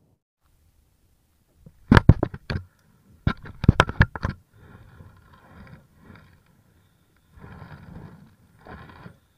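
Two quick clusters of sharp clicks and knocks, then a spinning reel being cranked in short spells, reeling in line.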